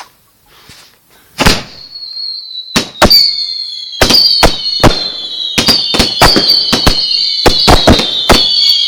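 A "Raging Bull" multi-shot firework going off. A first bang comes about a second and a half in, then several whistles with a slowly falling pitch hold on over a quickening run of sharp bangs.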